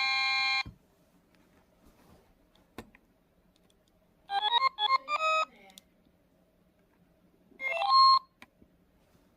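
Electronic melody chimes from a Takara Tomy Jinsei Tokei toy alarm clock's speaker: a held chord cuts off just after the start, then a short quick run of notes about four seconds in and another brief jingle about eight seconds in, with a single click between.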